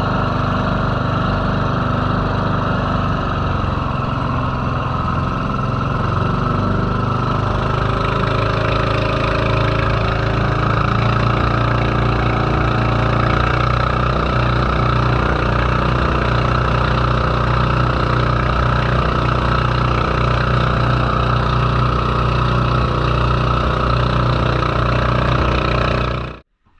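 A small boat's engine running steadily under way, its note brightening a little about eight seconds in. It cuts off suddenly near the end.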